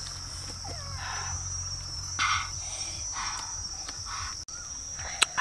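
Insects, crickets by their sound, droning steadily at a high pitch, with a few short rustling noises about once a second.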